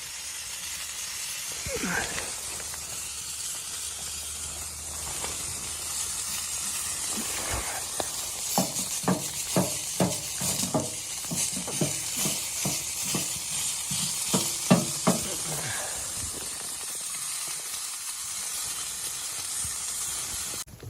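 Food sizzling in a hot pan with a steady hiss. Midway through, a utensil works the food in a run of regular strokes, about two a second, for some seven seconds.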